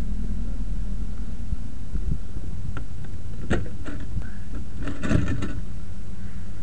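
Truck engine idling with a steady low hum, while the metal side equipment compartments of a brush truck are unlatched and swung open. There are a few sharp clicks, then a louder clatter of metal doors about five seconds in.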